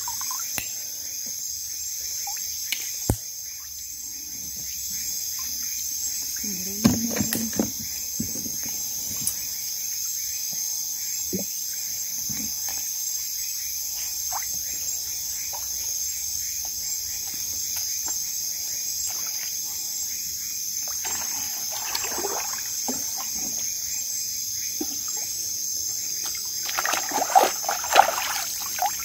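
A steady, high-pitched chorus of night insects, with faint water sloshing and small knocks as people move in a river; a burst of splashing near the end as a hand strikes the water.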